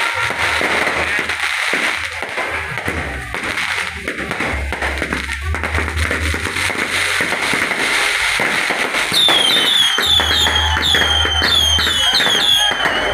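Fireworks crackling and popping nonstop over deep bass music from a loud street sound system, with a quick run of high, falling chirps in the last few seconds.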